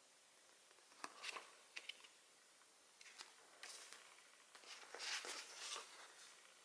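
Soft paper handling: a card and the glossy pages of an album photobook are handled and turned, giving scattered faint rustles and taps, with the loudest rustle about five seconds in as a large page is lifted.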